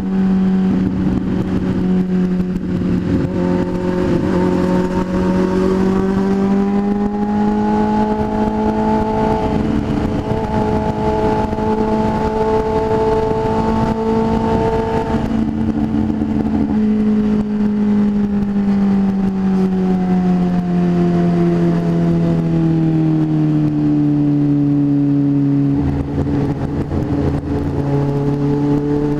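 Motorcycle engine running at road speed, heard from the rider's seat over wind rush. Its note climbs and holds, then slowly falls away, dips briefly near the end and starts rising again.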